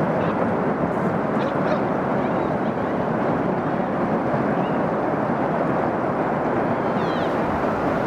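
Ice avalanche falling from a hanging glacier down a rock cliff: a steady, heavy rumble of ice and snow that keeps on without a break.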